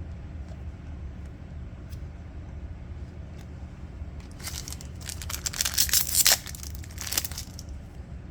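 A Kayou trading card booster pack's wrapper being torn open, with a few seconds of crinkling and tearing about halfway through. A steady low hum runs underneath.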